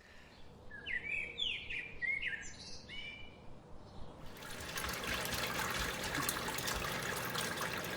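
Songbirds chirping with short, quick calls. About four seconds in, a steady rush of water begins: pumped basement water gushing out of a backup pump's discharge hose.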